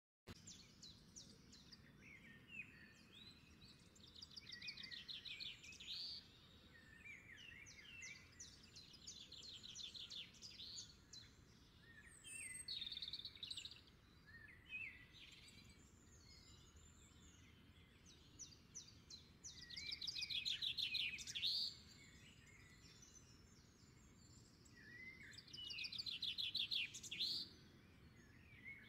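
Birds singing: phrases of fast trills and chirps, each a second or two long, repeating every few seconds over a faint steady background noise.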